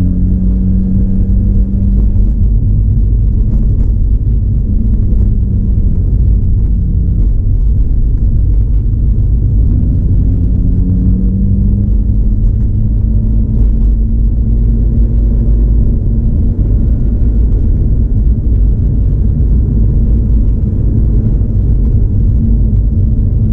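Mazda RX-8's rotary engine running while driving, under a heavy low road rumble; the engine note rises slowly around the middle, then holds steady.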